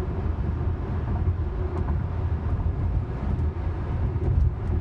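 Steady low road and tyre rumble inside a Tesla electric car cruising at highway speed.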